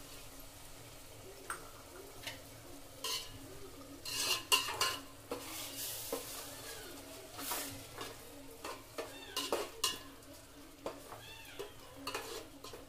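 Onion masala frying in a steel pot, stirred with a steel spatula that scrapes and clinks against the pot's sides in irregular strokes, busiest in the middle.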